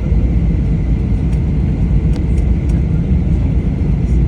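Steady, loud low rumble of a motor vehicle on the move, with a few faint ticks.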